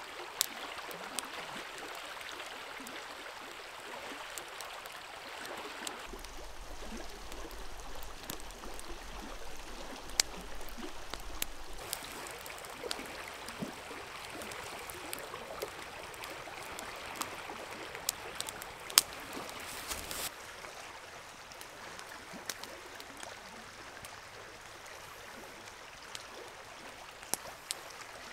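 A river flowing steadily over rocks, with sharp pops and crackles from a wood campfire scattered through.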